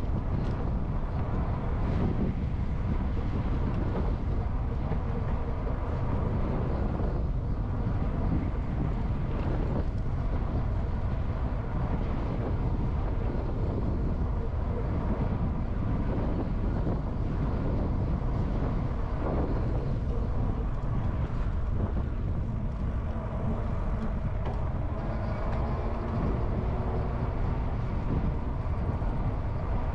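Wind rushing over a GoPro's microphone on a moving e-bike: a steady low rumble with no break.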